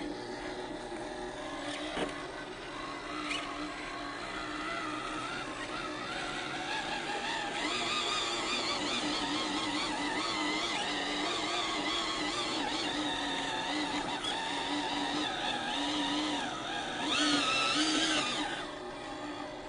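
Electric motor and gear train of a 1/18-scale FMS Chevrolet K10 RC crawler whining as it crawls up a rock slab, the pitch wavering up and down with the throttle. A sharp click comes about two seconds in, and the whine is loudest for a moment near the end.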